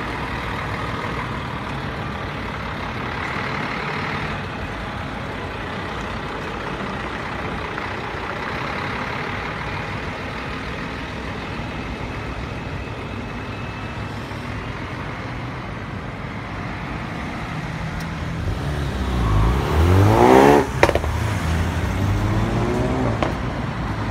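Street traffic with a recovery truck and a single-decker bus driving past, engines running under a steady road hum. About nineteen seconds in, a vehicle passes close by: the loudest moment, its sound sweeping in pitch, then it settles back to the traffic hum.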